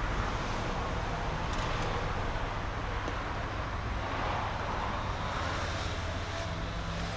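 Steady background noise of road traffic, with a low rumble, and a couple of faint light clicks about one and a half seconds in.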